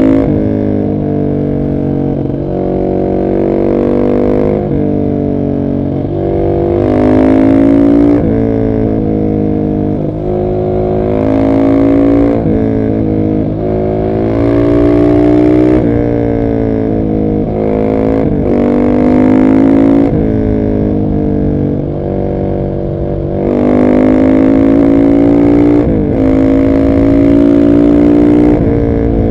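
Husqvarna 701 SM's single-cylinder engine through an Arrow exhaust with the baffle fitted, pulling hard through the gears. The pitch climbs and drops back at each upshift, over and over, with a few steadier stretches.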